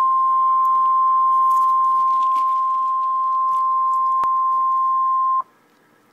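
Emergency Alert System attention tone: a single loud, steady high-pitched tone that cuts off abruptly about five seconds in, marking the start of a severe thunderstorm warning broadcast.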